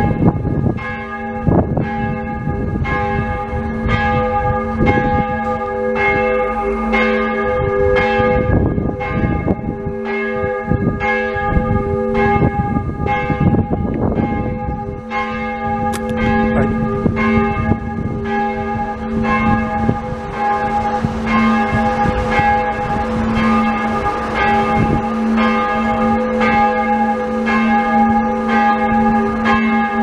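A large church bell ringing steadily, struck about once a second, its deep hum carrying on between the strokes.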